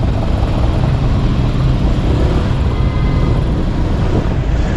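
Motorcycle running at low speed through traffic: a steady engine and road noise, heaviest in the low end, with wind rumble on the microphone.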